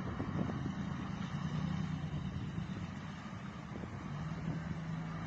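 Heavy haulage truck's engine running steadily with a low hum, over outdoor traffic noise.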